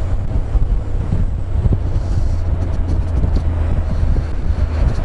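Wind buffeting a helmet-mounted action camera's microphone on a moving motorcycle, a loud, steady low rumble with the motorcycle's engine and road noise underneath.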